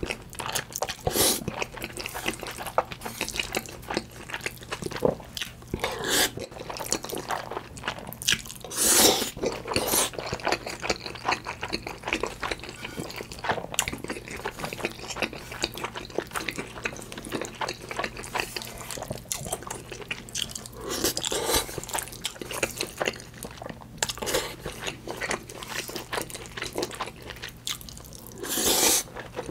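Close-miked eating of instant black bean noodles with spicy tuna: several long wet slurps as mouthfuls of sauce-coated noodles are drawn in from chopsticks, the last near the end. Between the slurps come wet chewing and lip smacks.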